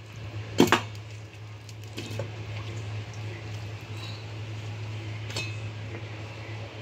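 A sharp clink of a ceramic bowl knocking on the countertop, then a couple of softer knocks as dishes and food are handled, over a steady low hum.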